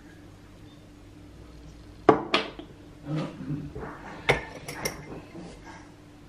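Off-screen kitchen clatter: a few sharp clinks and knocks of dishes, cutlery or jars being handled on a counter, the loudest about two seconds in and more over the following three seconds, over a low steady hum.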